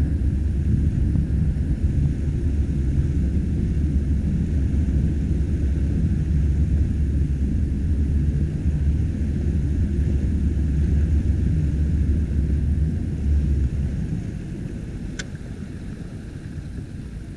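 Low, steady rumble of an inflatable motorboat under way, with wind buffeting the microphone; it eases off about fourteen seconds in. A single sharp click near the end.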